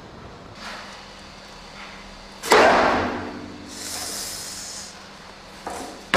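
Fired clay bricks knocked together as they are stacked: a sharp, ringing clack about two and a half seconds in, a gritty scrape of brick on brick, a light knock, and another loud clack at the very end.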